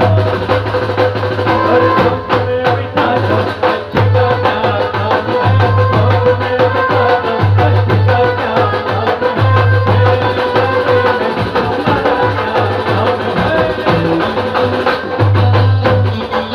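Live band music through a PA sound system: dense drum and percussion hits over a repeating bass line of held notes.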